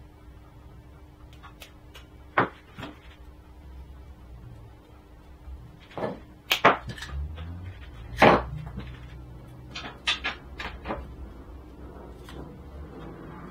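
Scattered sharp clicks and clacks of small hand tools being worked while coax cables are stripped and fitted with connectors: a single click a couple of seconds in, a cluster about six seconds in, the loudest clack around eight seconds, and a few lighter ones a little later, over a low steady hum.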